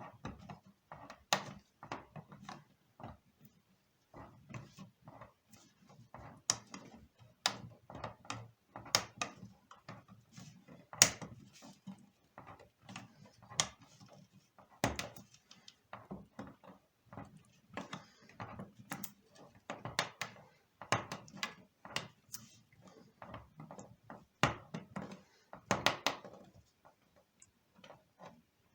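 Lever-type can opener on a Victorinox pocket knife cutting around the lid of a tin can: a steady run of irregular sharp metallic clicks and crunches, a few a second, as the blade is levered through the tin step by step.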